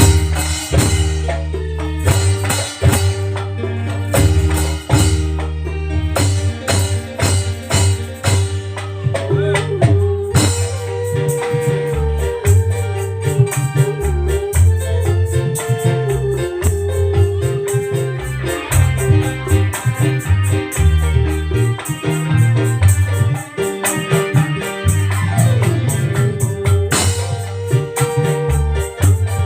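Live band music during a sound check: an electronic keyboard playing an organ-like melody over a heavy bass line and a steady beat of drums and shaker-type percussion.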